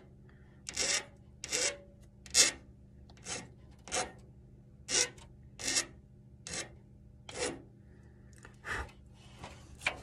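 Hand file scraping the end of the inner conductor of LDF4-50A coaxial cable in about ten short, separate strokes, roughly one a second, chamfering its edge so the connector will slide on without sticking.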